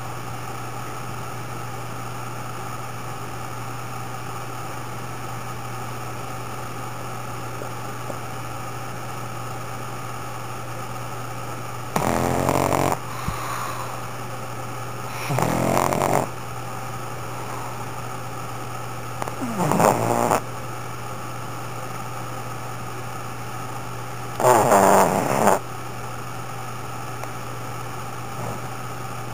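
Pug snoring loudly while asleep: four long snores, about a second each and roughly four seconds apart, in the second half, over a steady low hum.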